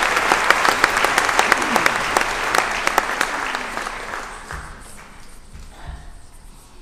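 Concert audience applauding, the clapping dying away about four seconds in; a few low thumps follow.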